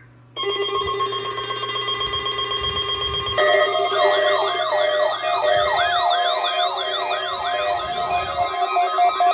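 Several weather alert radio receivers sounding their alarms together, set off by a NOAA Weather Radio Required Weekly Test. Steady electronic beeping tones start about half a second in. About three seconds in, more alarms join, including a fast, repeating warbling siren tone.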